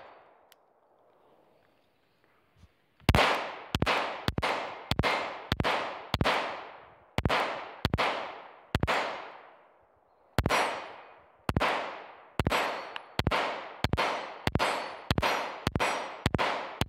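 Glock 19 9mm pistol firing a long string of about thirty shots, starting about three seconds in, with a few short pauses and the pace quickening toward the end; each shot echoes briefly.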